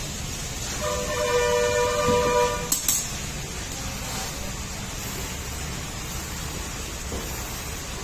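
A horn sounds one steady two-tone blast lasting about two seconds, followed by two sharp clicks, over a steady low rumble.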